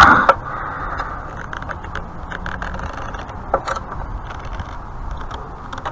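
Wrench working a seized, rusted lock nut on a pressure washer's wheel axle: a loud metal knock right at the start, then scattered small clicks and scrapes of the tool over a steady background noise.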